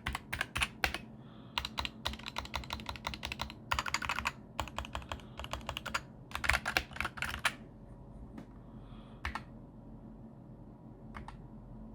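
Typing on a Keychron K8 mechanical keyboard: quick flurries of key clicks for about seven seconds, then only a few single key presses.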